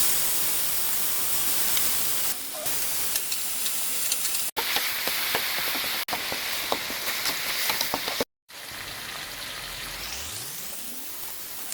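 Pork belly frying in hot oil: a steady sizzle with scattered crackles and pops. The sound cuts out briefly about 4.5 and 6 seconds in and drops out for a moment after about 8 seconds, then goes on quieter.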